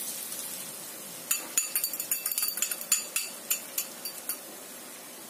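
Faint sizzling in the wok, then a run of about a dozen sharp, irregular metal clinks and taps against the wok as eggs go in to be scrambled.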